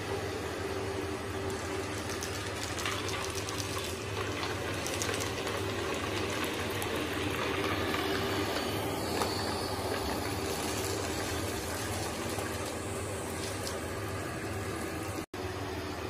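TECBOT M1 robot vacuum running in dry cleaning mode: a steady whir and hiss from its suction fan and brushes. Scattered light ticks come a few seconds in, and the sound drops out for an instant near the end.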